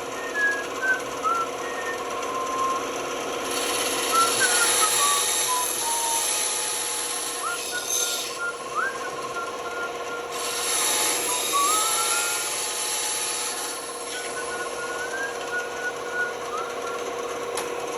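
Band saw running with a steady motor hum, its blade cutting through wood in two spells of a few seconds each, with a pause between them.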